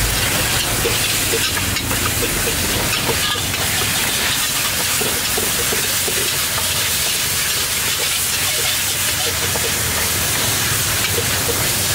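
Food sizzling in a steel frying pan as a metal ladle stirs it: a steady frying hiss with scattered light scrapes and clicks of the ladle against the pan.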